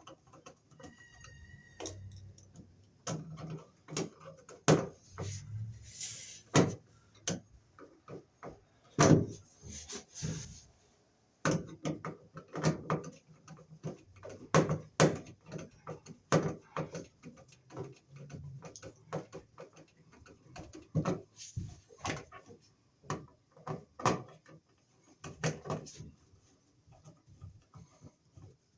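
Irregular clicks, knocks and scrapes of a flathead screwdriver working the mounting screws of a wall receptacle into an old-work electrical box, with a short pause about eleven seconds in.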